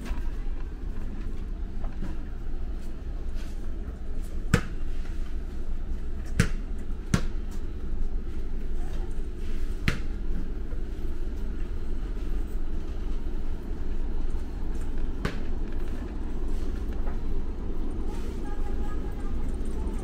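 Warehouse store ambience: a steady low rumble with a few scattered sharp clicks, and faint voices near the end.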